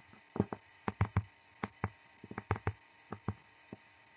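Pen stylus clicking and tapping on a drawing tablet during handwriting: about fifteen irregular, sharp clicks, some with a dull knock beneath them, over a faint steady hiss.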